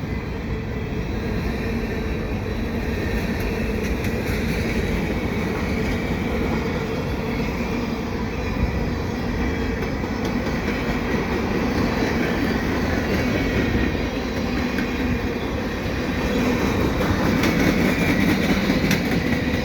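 Freight train of tank cars rolling past, a steady rumble and clatter of steel wheels on the rails.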